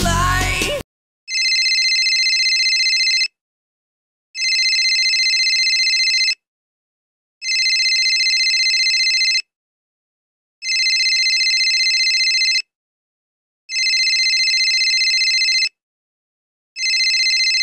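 Phone ringtone: steady electronic rings of about two seconds each, repeating about every three seconds with silence between. In the first second a loud snatch of the preceding soundtrack cuts off before the ringing starts.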